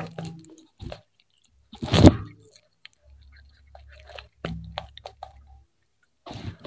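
Cat biting and chewing fried fish close up, with wet crunches of the crisp skin and bones. The crunches come in clusters: the loudest about two seconds in, a quieter stretch in the middle, and chewing starting again near the end.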